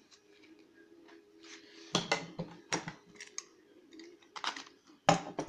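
Small cardboard box handled and cut open at its end flap with a utility knife: a series of sharp crackling clicks, loudest about two seconds in and again near the end.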